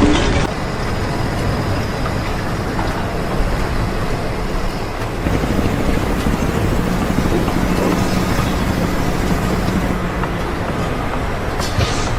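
Steady vehicle or machinery noise, a continuous rumble like traffic or a heavy engine running, with a faint low hum for a few seconds past the middle.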